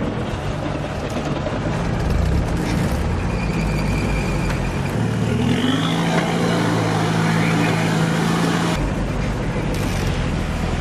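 Off-road vehicle engines running under load as a vehicle stuck in a swamp is pulled out on a tow strap, with an engine note rising about five seconds in.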